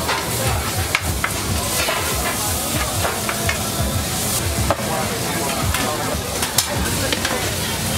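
Meat sizzling on a hot grill: a steady loud hiss, broken by a few sharp clicks.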